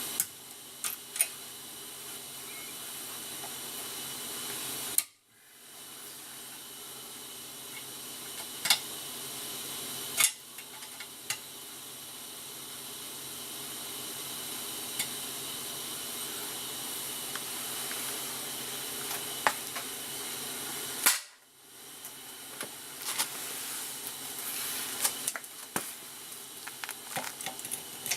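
Steady hiss with scattered sharp metallic clicks and taps of tools and parts being handled. The hiss cuts out suddenly twice, about five seconds in and again about twenty-one seconds in, then returns.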